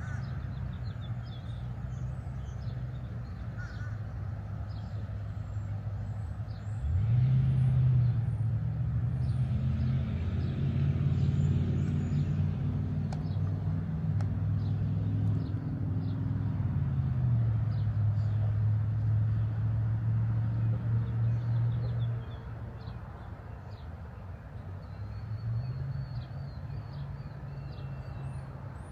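A nearby vehicle engine starts about seven seconds in, its low hum rising in pitch as it catches. It runs steadily, shifting a little in pitch, and cuts off about twenty-two seconds in; a quieter engine hum returns near the end. Birds chirp faintly throughout.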